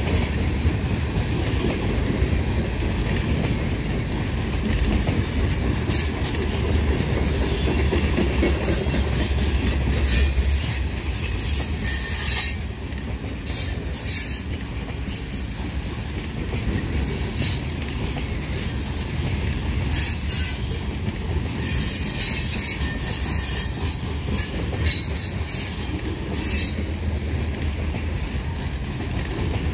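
Covered hopper cars of a freight train rolling past at close range: a steady low rumble of steel wheels on rail, with repeated short, high wheel-flange squeals.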